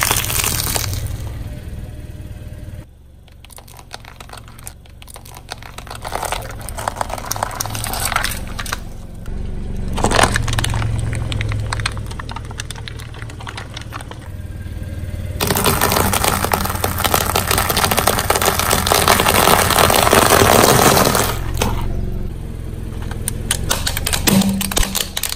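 Car tyre rolling over and crushing crunchy objects: scattered cracks and snaps, then a long stretch of dense crunching about two-thirds of the way through, with a low steady engine hum underneath.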